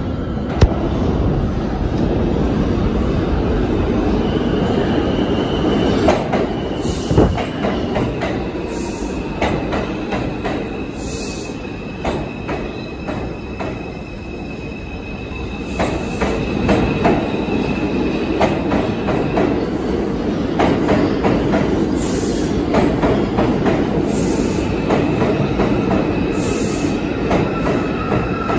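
New York City Subway train running into an underground station: a steady rumble with repeated clacks over the rail joints, and long high-pitched wheel squeals that come and go.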